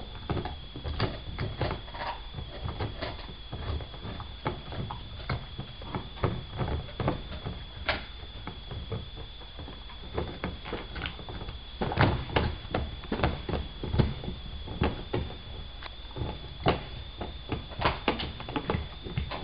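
A dog gnawing a raw grass-fed beef bone: an irregular run of clicks, scrapes and knocks of teeth on bone, with a cluster of louder knocks a little past the middle. A steady high-pitched whine sits underneath.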